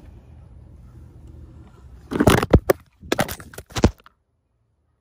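The camera being set down and toppling over: rumbling handling noise on the microphone, then a clatter of several sharp knocks and clunks as it hits and settles about two to four seconds in, after which the sound drops out abruptly.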